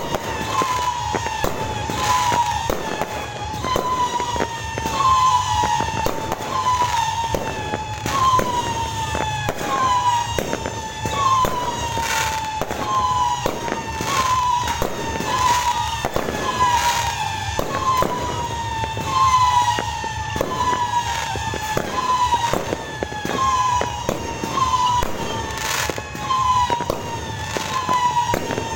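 Fireworks going off continuously: a dense run of bangs, pops and crackles. Over them a high tone repeats a little more than once a second, each one bending in pitch.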